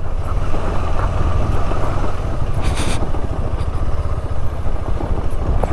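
Motorcycle engine running as the bike is ridden over a rough, broken road, with a steady low rumble and road and wind noise. There is a short burst of noise a little before the middle.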